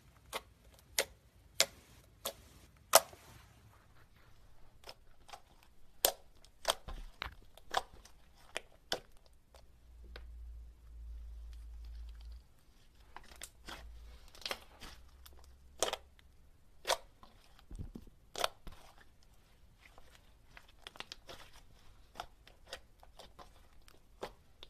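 Slime being handled, with irregular sharp pops and clicks, a few louder ones near the start, and a low rumble of handling about ten seconds in.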